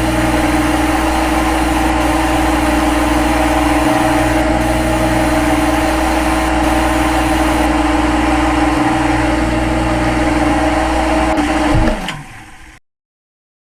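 CNC lathe running with a steady mechanical hum and several held tones, then winding down with a falling pitch about twelve seconds in and stopping.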